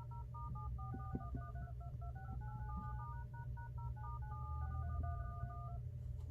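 iPhone emergency-call keypad playing touch-tone beeps as keys are tapped in quick succession, several a second, stopping shortly before the end, over a steady low hum. The key presses are testing whether the touch on a newly fitted replacement screen works.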